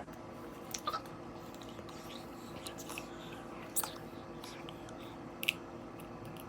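Eggshell being cracked and picked apart by hand: a handful of faint, scattered clicks and crunches over a steady low hum.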